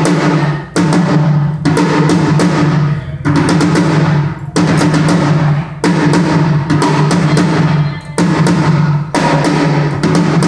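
A drum-kit tom struck repeatedly at a steady pace of about once a second, each hit ringing out with a low pitch for a sound check.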